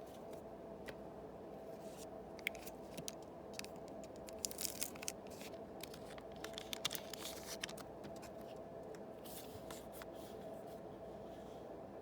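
Trading-card booster packs being torn open by hand and the cards handled: scattered crinkly tearing, rustling and card clicks, busiest in the middle, over a steady background hum.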